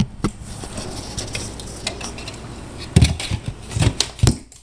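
Knocks and light clatter of a flush-mount in-ceiling speaker being handled and pushed up into its drywall cutout, with a run of louder thumps about three seconds in.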